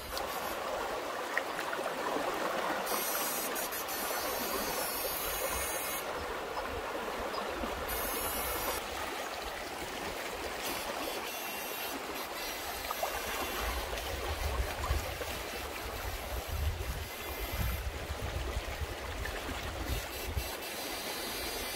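Shallow river water rushing steadily over the bed, with water splashing around a wader's legs. A low rumble comes and goes in the second half.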